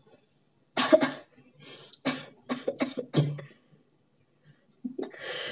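A person sneezing and coughing in short, sharp bursts during repeated sneezing: one loud burst about a second in, then a quick string of shorter ones, and a rising breath near the end that builds toward the next sneeze.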